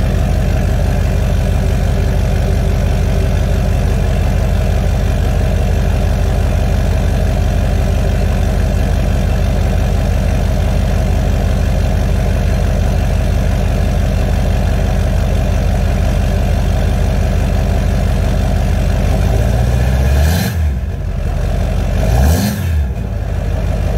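The 2004 GMC Sierra's LLY Duramax 6.6-litre V8 turbodiesel idles steadily through a 4-inch MBRP straight-pipe exhaust, still cold about a minute after a cold start. Near the end the throttle is blipped twice, and the note rises and falls each time.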